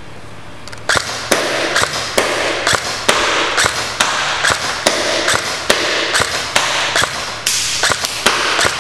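Real Sword Type 97B bullpup airsoft electric rifle firing in semi-automatic, a steady string of single shots about two a second, each a short sharp crack.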